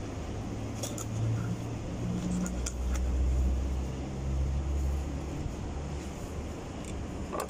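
Low engine-like rumble of a motor vehicle, swelling around the middle and easing off, with a few light clicks in the first three seconds.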